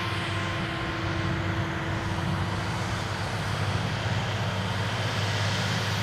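Valtra T234 tractor working with a Schuitemaker forage wagon in a silage field: a steady engine drone.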